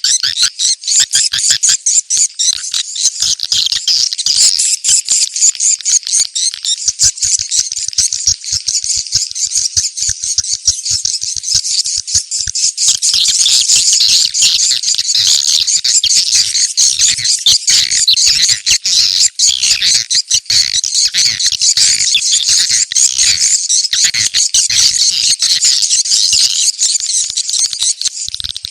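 Swiftlet lure-call recording: a dense, unbroken stream of rapid, high twittering chirps of edible-nest swiftlets. It is the 'ceklok' (location-check) call played to draw swiftlets in and gather them at a site.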